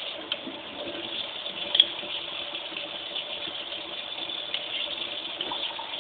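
Kitchen tap running steadily into a stainless steel sink, with a few scattered clicks of a metal spoon against the baking tray as jam is spread.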